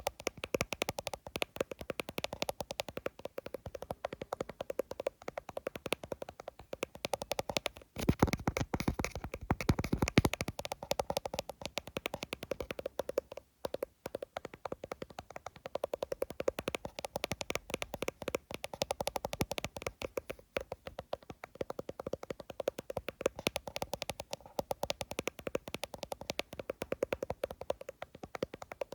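Fingers tapping fast on an iPhone: a rapid, continuous run of light clicks, heavier and louder for about two seconds some eight seconds in, with a brief pause near the middle.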